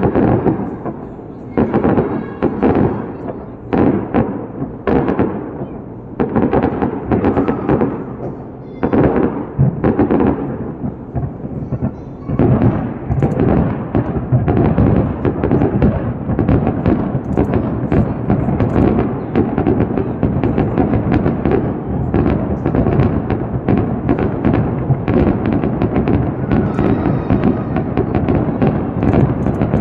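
Aerial fireworks bursting: separate booms about a second apart at first, then, from about twelve seconds in, a dense barrage of rapid bangs and crackling with no let-up.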